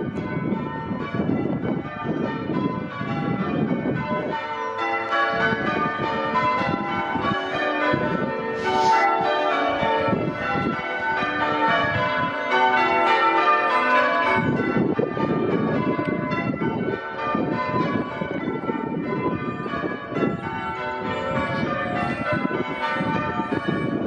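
A ring of church tower bells being rung in changes, a rapid, continuous tumble of strikes at different pitches. A low rumbling noise runs under the bells at the start and again from about halfway on.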